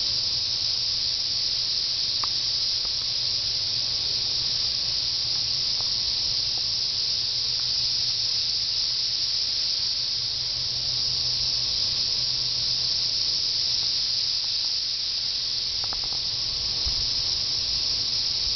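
Chorus of periodical cicadas singing en masse: a loud, steady, high-pitched hum that swells slightly and eases off again.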